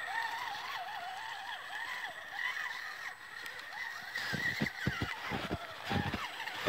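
ECX Barrage Gen2 RC crawler's electric motor and gears whining, the pitch wavering up and down with the throttle as it pushes through snow. A series of low thumps joins in about four seconds in.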